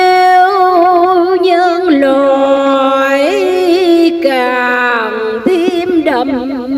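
A woman's solo voice chanting Vietnamese Buddhist verse in a drawn-out sung style, holding long notes with a wavering vibrato and sliding between pitches.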